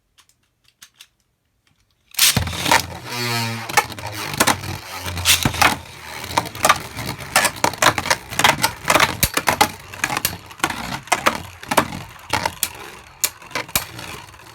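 Beyblade Burst spinning tops launched into a plastic stadium about two seconds in, with a brief whir at the launch, then many rapid, irregular plastic clacks and rattles as the spinning tops collide and scrape around the stadium.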